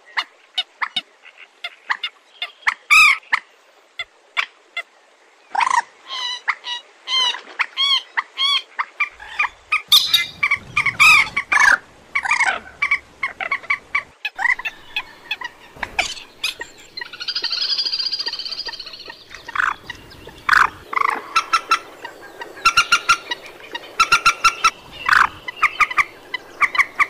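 Moorhen calling: a long series of short, sharp call notes, a harsher chattering stretch about two-thirds of the way through, and a fast run of repeated notes near the end.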